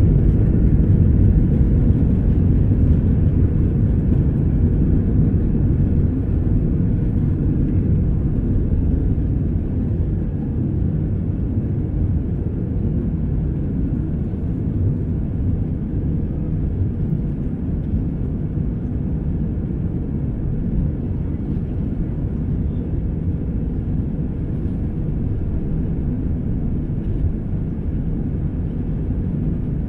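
Cabin noise of an Airbus A319 moving along the runway: a steady low rumble of the jet engines and the rolling aircraft, easing slightly over the first ten seconds and then holding level.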